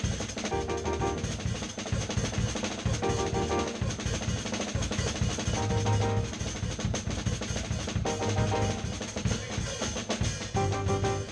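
A drum kit playing a busy, fast groove with dense snare, kick and cymbal hits, while keyboard chords come in roughly every two and a half seconds.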